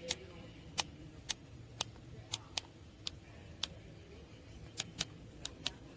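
A series of about eleven sharp, irregularly spaced clicks over a faint low hum.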